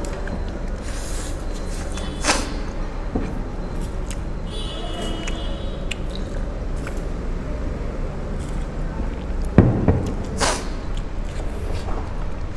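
Mouth noises from eating noodles straight off a plate without hands: slurps and chewing, in short scattered bursts over a steady low hum. A thump with a noisy burst, the loudest sound, comes about two-thirds of the way through.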